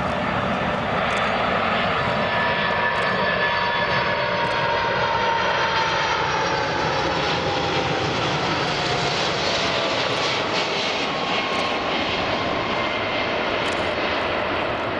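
Boeing 747-400 freighter's four jet engines on final approach to landing: steady jet noise with whining tones that slowly fall in pitch as the aircraft passes.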